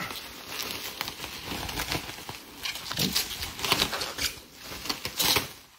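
Bubble wrap crinkling and rustling as it is handled and pulled open by hand, in irregular bursts that get louder a few seconds in and again near the end.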